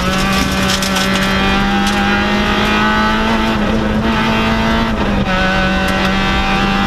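Peugeot 106 N2 rally car's four-cylinder engine heard from inside the cabin, held at high revs on a wet stage, with two brief dips in pitch about halfway through and later on.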